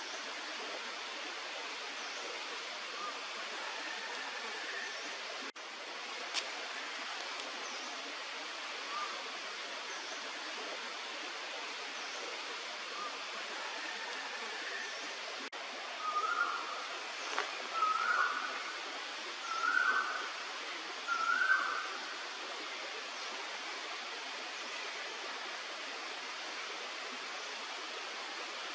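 Banded bay cuckoo calling: four clear whistled notes about two seconds apart, each a step higher than the last, over a steady hiss. Fainter single notes come now and then before them.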